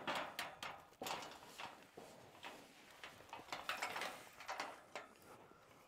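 Irregular clattering and rattling knocks, several in quick bursts, the loudest at the very start, about a second in and around four seconds in.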